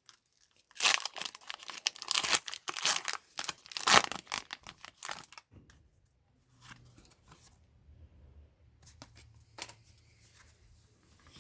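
A foil Pokémon booster pack wrapper being torn open and crinkled for about five seconds, then quieter handling sounds.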